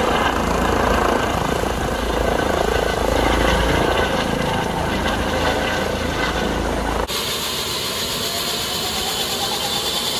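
Eurocopter EC135 air-ambulance helicopter lifting off, its rotor and twin turbines running loud over a deep rumble. About seven seconds in, after a cut, the helicopter is on the ground with rotors turning and a turbine whine that slowly rises in pitch.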